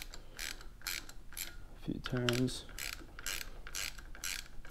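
Hand socket ratchet clicking in short bursts, about two a second, as it backs out the clutch spring bolts on a Honda Grom's clutch pressure plate.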